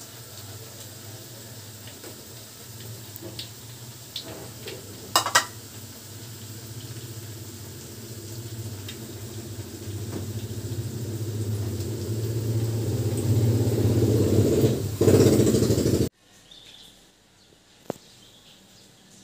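A fritter frying in oil in a steel wok, with a few sharp spatula clicks against the wok about four to five seconds in. Under it a low drone grows steadily louder over several seconds and cuts off suddenly.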